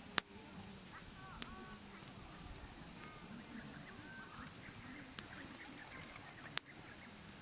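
Wood campfire crackling, with two sharp pops, one just after the start and one near the end, and a few fainter ticks in between.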